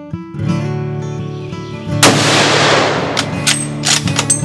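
Acoustic guitar music with a single loud gunshot about two seconds in, its report fading over a second or so, followed by a few short sharp clicks.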